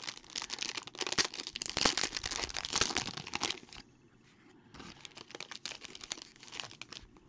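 Foil wrapper of a trading card pack being torn open and crinkled in the hands, in two spells of dense crackling with a short pause between them.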